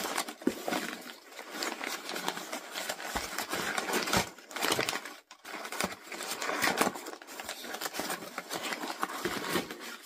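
Crumpled brown kraft packing paper rustling and crinkling as it is handled and pulled out of a shipping box, in uneven swells that stop near the end.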